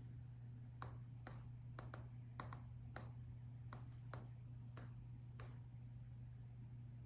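Laptop keyboard keys pressed one at a time in slow, irregular keystrokes, about one or two a second, stopping about five and a half seconds in, over a steady low hum.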